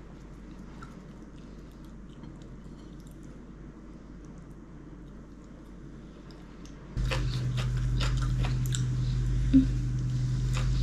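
A person chewing food, with small wet clicks from the mouth. About seven seconds in the sound abruptly gets louder, a steady low hum comes in, and the clicks become sharper and more frequent.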